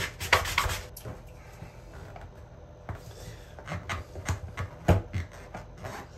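Short rubbing strokes of hand sanding on cured fiberglass resin. Then, from about three seconds in, a jackknife blade scrapes and clicks in short strokes as it tries to shave down a raised high spot of resin that the 80-grit sponge is not cutting.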